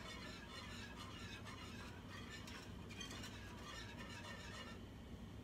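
Wire whisk clinking and scraping quickly against the sides and bottom of a saucepan, beating a milk-and-gelatin mixture to dissolve the gelatin. The rapid clicking stops near the end.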